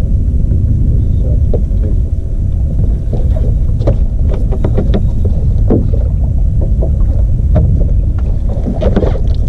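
Fishing boat on the water: a steady low rumble, with scattered knocks and taps throughout.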